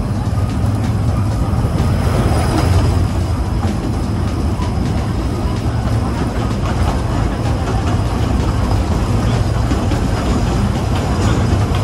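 Kurobe Gorge Railway narrow-gauge trolley train running along the track, heard from aboard: a steady low rumble of wheels on rails.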